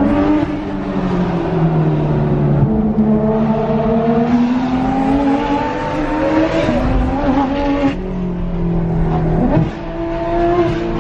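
Porsche 991.2 GT3 RS's flat-six engine through its muffler-delete exhaust, driven on the road: the revs climb and fall, with sudden drops in pitch at gear changes about eight seconds in and again shortly after.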